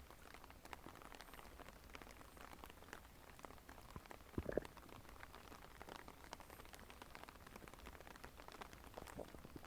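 Faint stomach gurgling: small bubbly, crackling ticks throughout, with one short, louder gurgle about four and a half seconds in.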